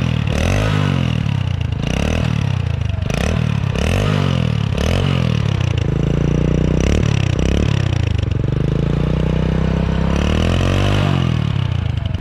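Hero Splendor's single-cylinder four-stroke engine being revved through its replaced exhaust: quick blips rising and falling about once a second, then longer revs held higher over the second half, easing off near the end.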